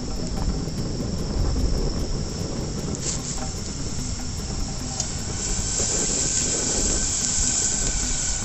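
Spice paste and leaves frying in oil in a pan over a wood fire, with a sizzling hiss that grows stronger about five seconds in. Crickets chirr steadily, and a low rumble runs underneath.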